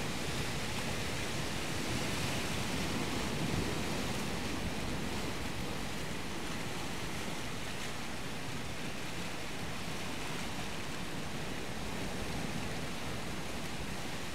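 Steady rushing of surf, an even wash of water noise with no distinct events.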